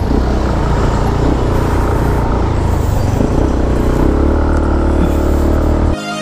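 Motorcycle engine running as it rides through city traffic, with steady road and wind noise on the bike-mounted microphone. Near the end it cuts suddenly to background music with violin.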